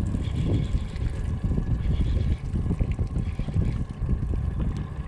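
Low rumble of wind buffeting the microphone over a small boat's running outboard motor, which hums faintly and steadily underneath.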